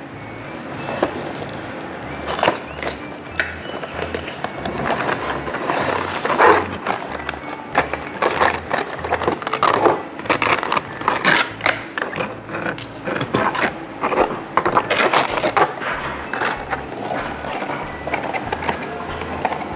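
Packaging being handled: a cardboard box and a clear plastic blister tray crinkling, clicking and scraping as a diecast model is taken out, in many short irregular bursts.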